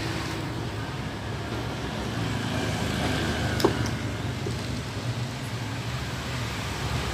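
Steady low rumble of motor vehicle traffic, with a single sharp click a little past halfway through.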